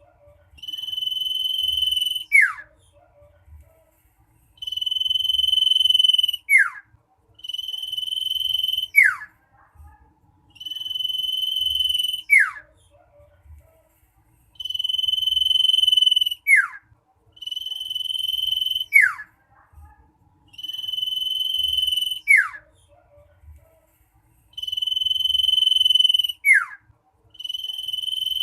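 Common iora (cipoh) singing a shrill, insistent song. Each phrase is a long steady whistle that ends in a quick downward slur. The phrase repeats about nine times, in groups of two or three with short pauses between groups.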